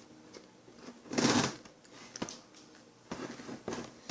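Cardboard packaging being pried and handled as a box is worked open: a loud scraping rustle about a second in, a sharp click, then a few softer scrapes.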